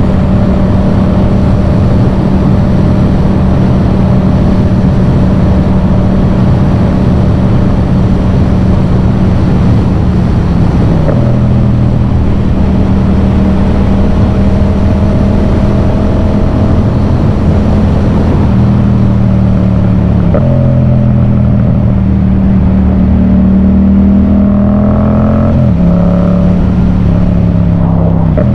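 Yamaha MT-07's parallel-twin engine running through a Yoshimura full exhaust on the move. The engine note holds steady for long stretches and steps abruptly in pitch about a third of the way in and twice more near the end.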